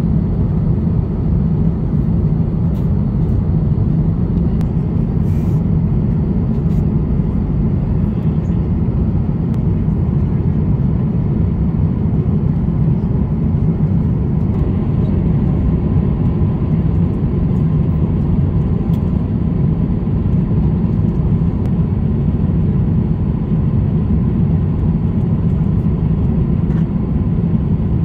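Steady low roar of engine and air noise inside the cabin of an Airbus A350-900 airliner.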